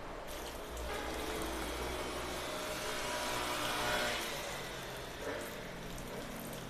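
Hot water poured from a glass jug into a glass bowl full of purple basil leaves, a splashing pour that starts about a second in, grows louder, and eases off about five seconds in.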